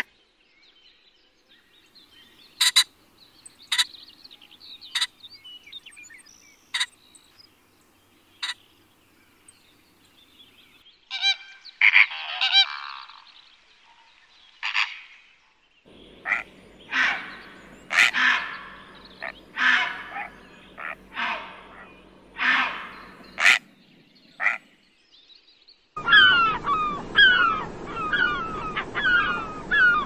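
Waterbirds calling in turn: sparse short calls with a mallard drake for the first ten seconds or so, then a series of about ten spaced calls from a heron, then quick, repeated gull calls, several a second, from a common gull near the end.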